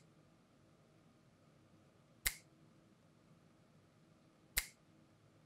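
Two sharp, snap-like clicks about two and a half seconds apart, each dying away quickly, over faint room tone.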